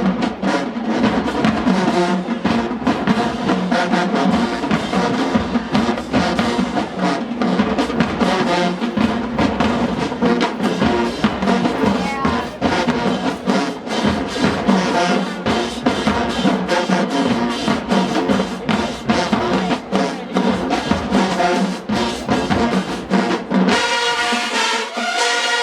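Marching band playing loud, the drumline beating a dense rhythm under the brass. Near the end the drums stop and the brass holds sustained chords.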